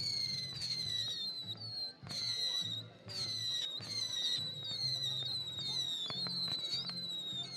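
Weco New Moon firework battery firing a rapid sequence of whistling shots. A new whistle starts about twice a second, each sliding slightly down in pitch, with a few sharp cracks near the end.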